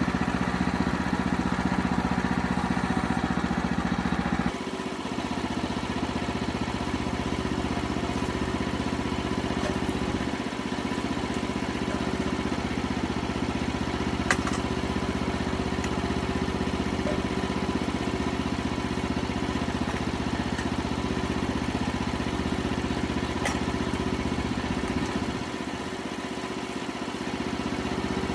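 An engine running steadily, its loudness dropping about four and a half seconds in, with a single click near the middle.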